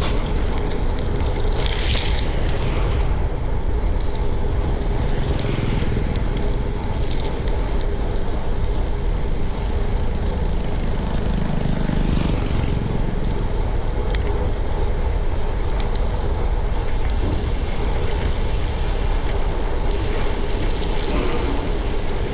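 Wind rushing over a GoPro Hero10's microphone as a mountain bike is ridden along a road, a loud steady noise, with road noise and passing motor traffic.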